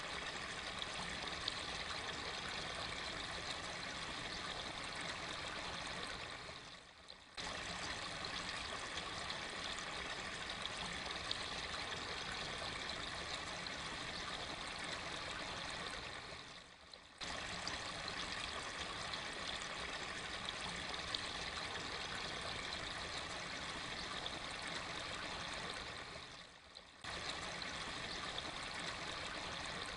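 Steady running water, a stream-like trickle and splash, that fades away and starts again abruptly about every ten seconds, three times over, as a looped recording.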